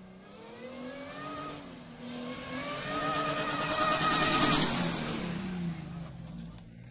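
Car engine accelerating, its pitch rising in steps as it shifts up, growing louder to a peak about four and a half seconds in, then easing off.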